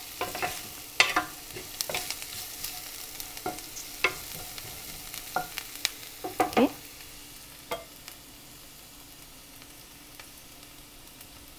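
Wooden spatula stirring and scraping sliced onion and dry red chilies in a nonstick pan of hot oil, with sharp knocks and scrapes over a steady sizzle. The stirring stops about eight seconds in, leaving only the frying sizzle.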